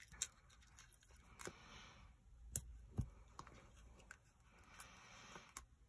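Quiet handling of Stampin' Up Dimensionals, small foam adhesive pads being peeled from their sheet and pressed onto a piece of cardstock. There are a few faint sharp clicks, the clearest about two and a half and three seconds in, with light paper rustling between them.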